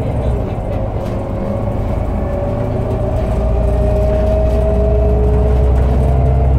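Irisbus Citelis 18 articulated bus heard from inside while under way: a steady low engine drone with a whine from its Voith automatic gearbox that rises slowly in pitch as the bus gathers speed.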